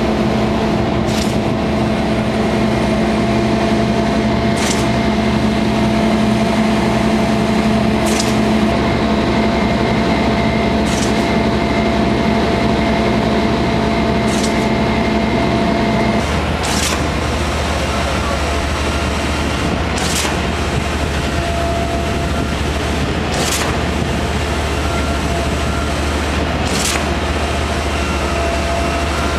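Fundex F3500 CFA piling rig running under load, a steady engine and hydraulic drone while the 1500 mm auger turns. A short knock repeats about every three and a half seconds, and the engine note changes about halfway through.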